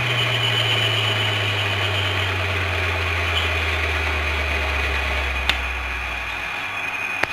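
Electric motor of a rattan thinning machine with a round blade, spinning down after being switched off: its low hum falls steadily in pitch and dies out about six and a half seconds in. A steady hiss with a thin high whine runs underneath, and two sharp clicks come about five and a half seconds in and near the end.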